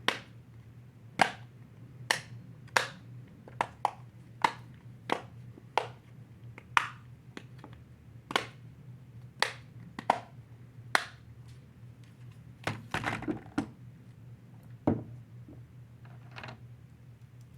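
Silicone dimple fidget toy shaped like a crab, its bubbles pressed and popped by a finger: sharp single clicks at an uneven pace, about one or two a second, with a quick run of clicks about two-thirds of the way through.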